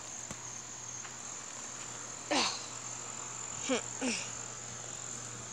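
Crickets chirping in a steady high-pitched drone. Three short falling calls come through about midway.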